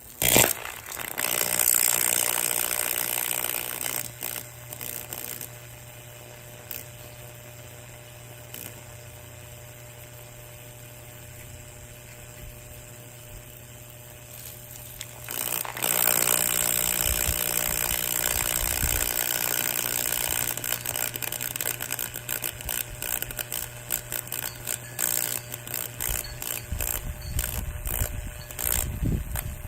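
A St. Regis BF-1000 mini box fan being wrecked while its electric motor keeps humming steadily. It opens with a sharp crash and a few seconds of loud grinding. Midway there are about ten seconds of plain hum. From about halfway on comes loud, clattering grinding with many sharp clicks, and heavy rumbling near the end.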